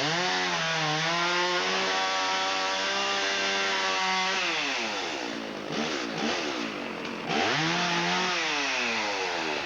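Chainsaw engine revving up and held at high speed for about four seconds, dropping back to idle, then revving up again about two-thirds of the way through and dropping back near the end.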